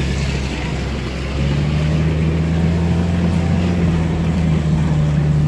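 Car engine heard from inside the cabin as the car drives through deep mud ruts; a steady low drone that steps up and grows louder about a second and a half in as the driver gives it more throttle.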